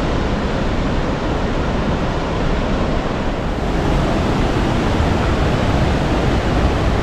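Rushing mountain river: a steady, loud wash of water noise.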